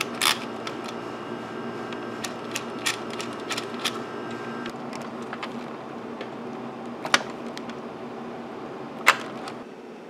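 Scattered small clicks and taps of hands handling metal terminals and wires in an amplifier chassis, with one sharp click near the start and two more in the second half. A steady background hum stops about halfway through.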